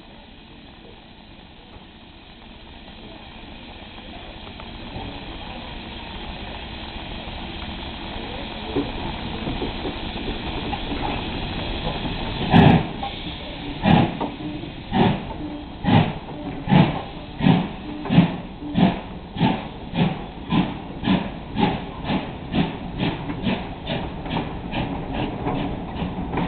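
Steam locomotive pulling away from a stand: steam hissing that grows louder for about twelve seconds, then loud exhaust chuffs. The chuffs start about a second and a half apart and steadily quicken to about two a second.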